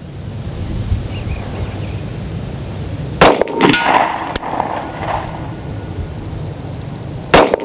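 Two pistol shots about four seconds apart, the second near the end; less than a second after the first, a steel silhouette target 100 yards downrange clangs and rings briefly from the hit.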